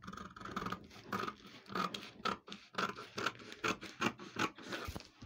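Scissors cutting through brown pattern paper: a steady run of rasping snips, about two a second.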